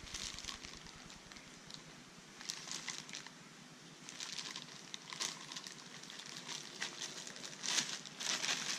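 Plastic packaging rustling and crinkling in bursts as vacuum cleaner parts are unpacked, busier near the end.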